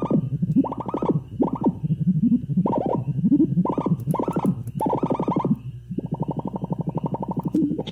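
Homemade XOR-gate drone synthesizer playing a pitched electronic tone that pulses in uneven swells, about one or two a second. Near the end it changes to a fast, even throbbing, then cuts off suddenly.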